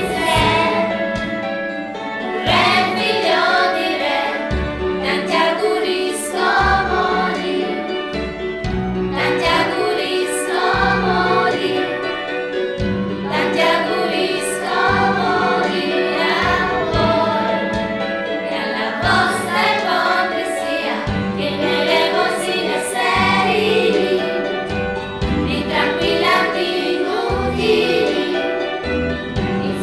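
Music: a choir singing a song over instrumental backing with a steady bass line.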